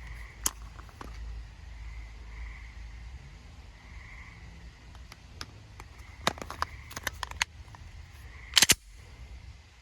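Sharp clicks and clacks. A few come singly early on, then a quick cluster follows, and a loud double clack near the end is the loudest sound.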